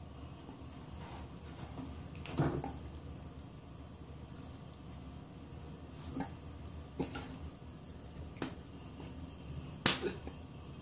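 Quiet small room with a few scattered light taps and knocks, the sharpest about ten seconds in, as a hand handles a toilet paper roll on its holder beside a cat.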